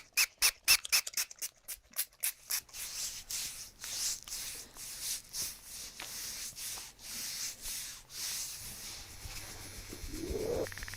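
Hands rubbing topical magnesium into a patient's skin. First comes a fast run of short hissing strokes, then slower rhythmic rubbing about once or twice a second.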